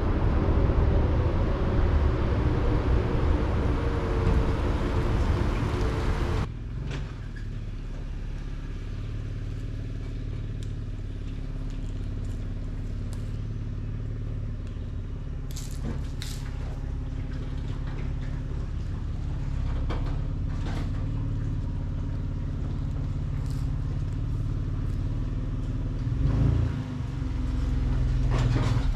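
Chevy Colorado pickup driving while towing a pressure washer trailer: engine and road noise with light rattles. A loud, noisy stretch cuts abruptly about six seconds in to a steadier low drone, which swells briefly near the end.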